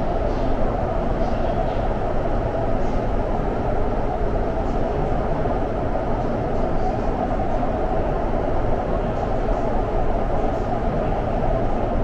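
Guangzhou Metro Line 18 train running, a steady low rumble and rush of noise that holds even throughout.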